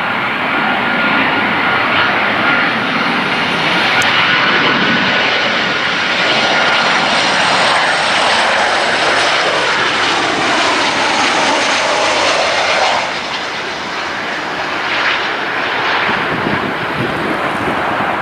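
Boeing 737-700 jet on final approach with gear down, its CFM56-7B turbofan engines making a loud steady roar with a thin whine over it. The whine and roar slide down in pitch as the jet passes over, and the sound eases off about two-thirds of the way through.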